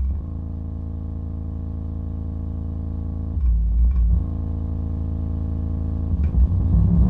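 Magnat Bull Power Doubleflex 210 twin-woofer subwoofer box playing bass-heavy music at high volume. A long held low bass note with a stack of overtones is broken by heavier bass hits about three and a half seconds in and again near the end.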